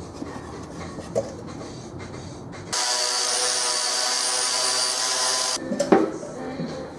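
A handheld power tool runs against a thin sheet-metal can for about three seconds, starting abruptly and cutting off suddenly, with a steady whine and a strong hiss. A few sharp metal clanks follow.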